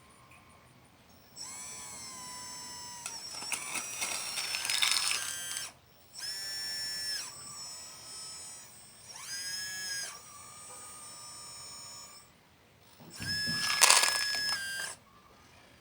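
Electric motors and hydraulic pump of a radio-controlled hydraulic construction model whining in a series of bursts a few seconds long, the pitch stepping and gliding as the controls are worked, with short pauses between.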